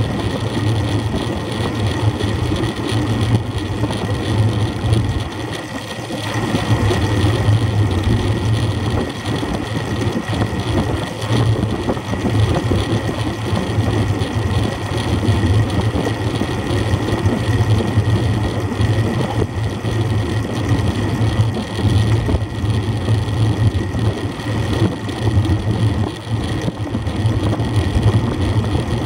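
Steady wind rush and road noise from a road bike in motion, heard on a camera mounted on the bike.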